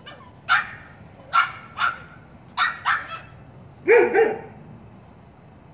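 Puppies yapping: seven short, high-pitched barks in small groups, the last two, about four seconds in, the loudest.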